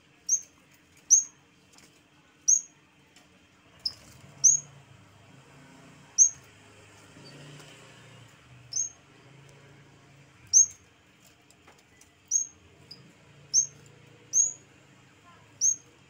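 Caged yellow-bellied warbler (cikrak bambu) calling: single short, sharp, high chirps, about a dozen, spaced irregularly a second or two apart.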